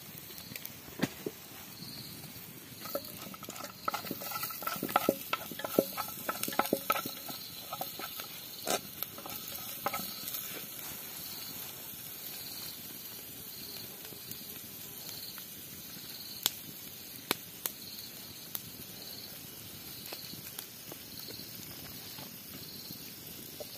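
Food frying in hot fat in a pan: a steady sizzle with sharp crackles and taps, busiest in the first ten seconds and thinning out after.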